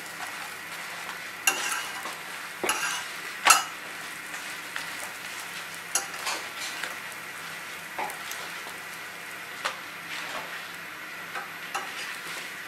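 Flatbreads frying on a hot iron tawa griddle: a steady sizzle, broken by sharp clicks and scrapes of metal tongs against the griddle as the parathas are moved and turned, the loudest a few seconds in.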